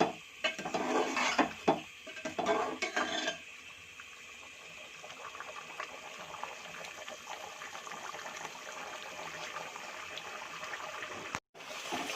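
Metal spatula scraping and clanking against a karahi as chicken is stir-fried (bhuna) in a yogurt masala, for about the first three seconds. Then a steady sizzle as the liquid cooks off.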